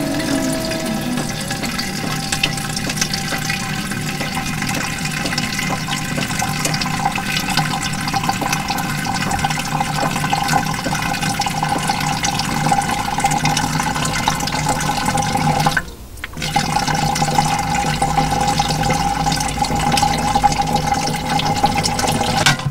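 Water running steadily from a fountain spout into a metal jug, filling it. A hollow tone in the splashing rises slowly as the jug fills, and the sound breaks off for a moment about two-thirds of the way through.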